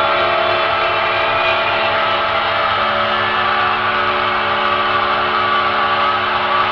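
Dark ambient drone music: a dense, steady wall of sustained tones over a hiss, with a low pulsing hum underneath.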